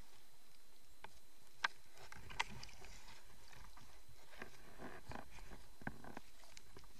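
Underwater handling noise as a speared peacock bass is held against a speargun: scattered sharp clicks and knocks over a faint steady hiss. The two loudest clicks come about a second and a half and two and a half seconds in.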